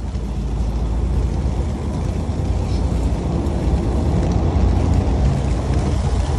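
Strong wind buffeting the microphone in a steady low rumble, over the fishing boat's engine running.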